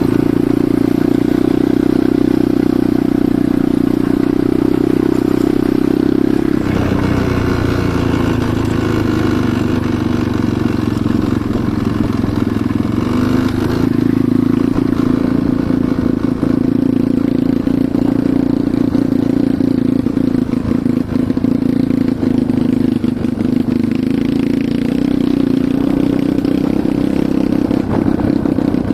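Enduro motorcycle engine running steadily under way. About seven seconds in its note drops, then climbs back by about fourteen seconds. Scattered knocks and clatter come in the second half.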